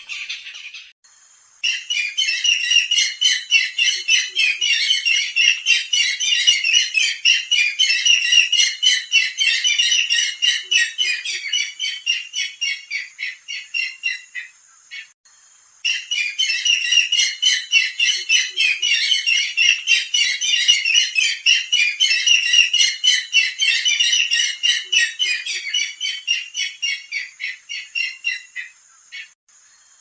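Barred rail (sintar zebra) calling: two long runs of rapid, repeated high notes, broken by a short pause midway.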